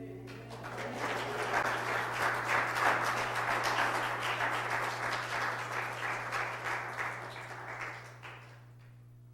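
A congregation applauding after a musical piece ends, rising quickly and dying away after about eight seconds.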